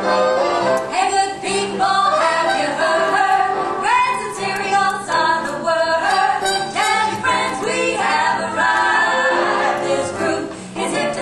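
Recorded show tune sung by a group of voices in harmony, played loud and without pause.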